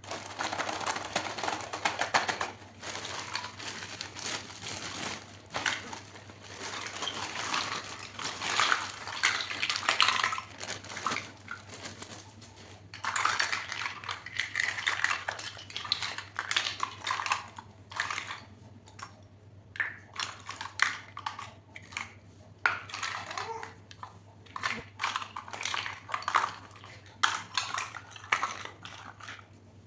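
Miniature plastic toy kitchenware being unpacked and handled: many small clicks and taps of tiny dishes and utensils, with stretches of packaging rustling. A steady low hum runs underneath.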